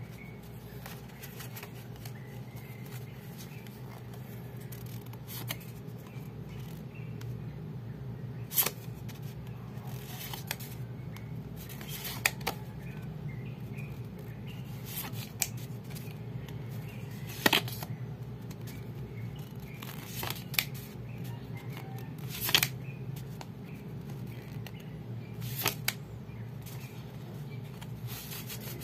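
Stiff cards from a card-game deck handled and thumbed through by hand, giving sharp, brief snaps every two to three seconds as cards flick against each other, over a steady low hum.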